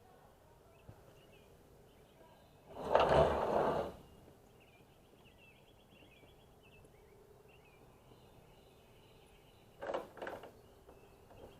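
Birds chirping faintly throughout, with a loud burst of rough noise lasting about a second and a half a few seconds in, and a few sharp knocks near the end.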